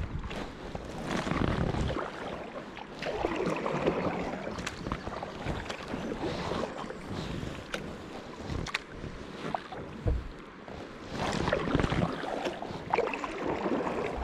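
Double-bladed kayak paddle dipping and pulling through calm river water: a swishing splash about every two seconds, with drips and small clicks between strokes. Some wind buffets the microphone.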